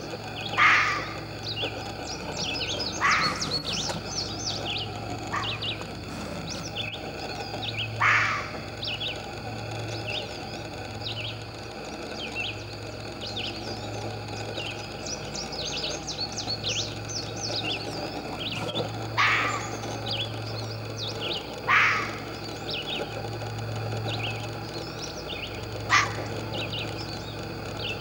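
Red fox kit giving single short, high barks every few seconds as contact calls for its mother, seven in all, with a pause of about ten seconds in the middle. Songbirds chirp faintly throughout.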